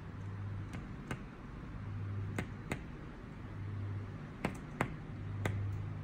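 A small yellow bird pecking at window glass with its bill: about seven sharp taps, mostly in quick pairs.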